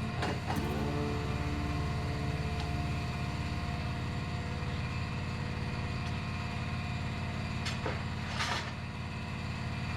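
Steady low machine hum in a tyre shop, with a few short knocks near the start and a brief hiss about eight and a half seconds in.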